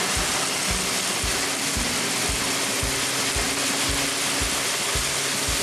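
Dry peas pouring from a grain trailer's hopper gate into a running grain auger, making a steady rushing rattle. Background music with a beat about twice a second plays underneath.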